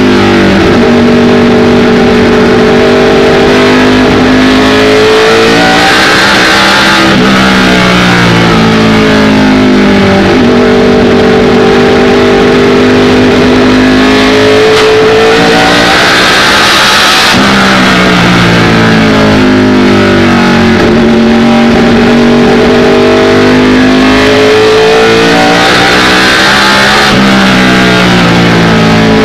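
ARCA stock car's V8 engine heard from inside the car at racing speed, loud throughout. The revs hold high, then fall and climb back three times, as the driver lifts for each turn and gets back on the throttle.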